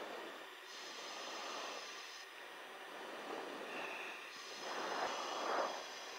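Hiss on the camera aircraft's crew intercom, with soft rushing swells every second or two, the loudest about five seconds in.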